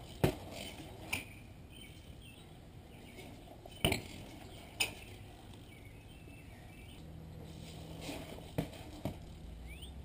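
Verde Eon BMX bike being ridden and landed on concrete: about six separate sharp knocks and metallic clanks as the wheels hit down and the bike's parts rattle. A low steady hum comes in about two-thirds of the way through.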